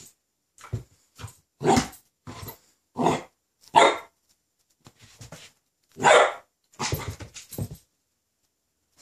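Ten-week-old Rhodesian Ridgeback puppy barking at her own reflection in a mirror: a string of separate barks, about four of them loud, the loudest and longest a little past the middle, with quieter ones in between.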